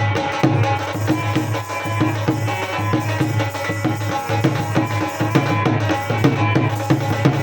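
Music with a steady drum rhythm and held melodic tones.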